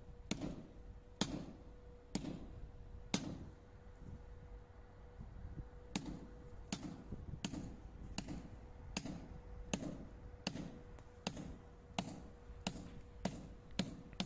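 Hammer blows driving metal anchors into drilled holes in a wall to fix a steel frame bar: four blows about a second apart, a pause of about three seconds, then about a dozen quicker blows at an even pace. A faint steady hum sits under them.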